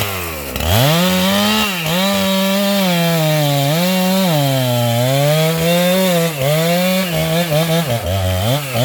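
Husqvarna 390XP two-stroke chainsaw at high revs cutting through sengon (albasia) wood. Its pitch sags and recovers several times as the chain bites under load. The revs jump up about a second in and dip briefly near the end.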